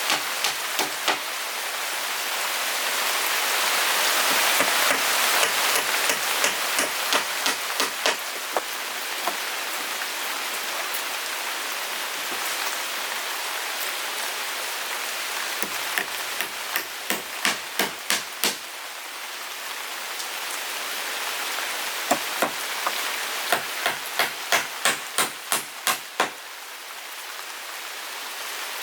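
Steady rain hiss with a hammer striking wood: scattered blows at first, then two runs of quick blows about three a second, in the middle and again near the end, as when driving nails.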